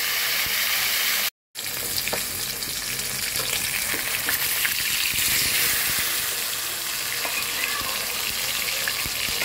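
Whole tilapia deep-frying in hot oil in an iron karahi: a steady sizzle, with a few light knocks of a steel spatula turning the fish. The sound cuts out for a moment about a second in.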